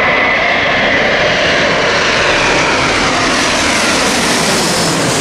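Airbus A350 jet airliner flying low overhead, its Rolls-Royce Trent XWB turbofans making a loud, steady rushing roar. A whine in the engine noise falls in pitch as the aircraft passes overhead.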